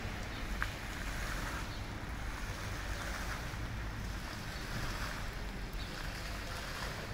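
Wind buffeting the microphone with a low rumble, over a steady hiss of falling water.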